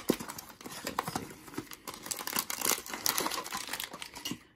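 Cardboard blind box being opened and a foil blind bag pulled out and handled, with irregular crinkling and rustling.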